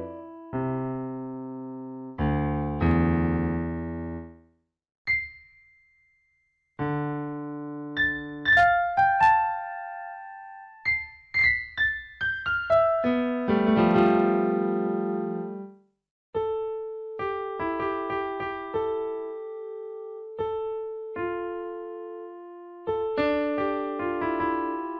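Background music: piano notes played in a slow, gentle phrase, with a couple of short pauses.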